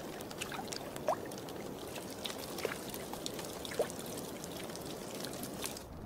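Meltwater trickling and pouring at the edge of thawing ice, steady, with many small scattered clicks and splashes.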